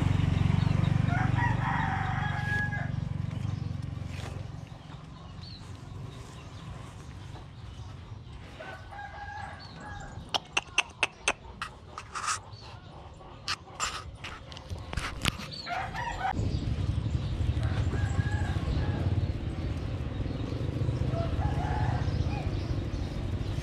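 A rooster crowing several times in the background. Midway there is a quick run of sharp clicks and knocks, and a low rumble sits under the start and the second half.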